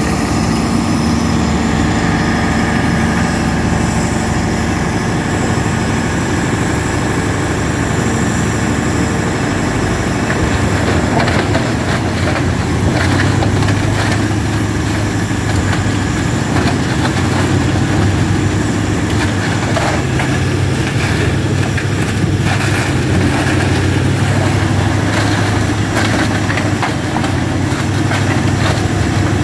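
Doppstadt DW 3080 slow-speed wood shredder running under load, its diesel engine running steadily while scrap timber cracks and splinters in the shredder. The cracking gets busier and the low engine hum stronger from about eleven seconds in.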